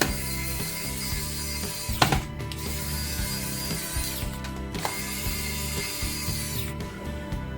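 Small electric screwdriver running in three spells of about two seconds each, with a steady whine and ratcheting clicks, driving the small screws of a laptop's drive bay back in. Background music plays underneath.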